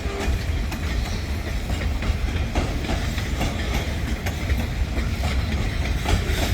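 Freight cars rolling past close by: a steady low rumble of wheels on the rails, with wheels clicking irregularly over rail joints.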